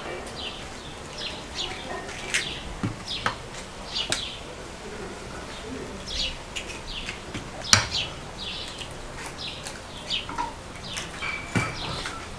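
Small birds chirping again and again in short high notes, with a few sharp clicks from hard-boiled eggshells being cracked and peeled by hand, the loudest crack a little past the middle.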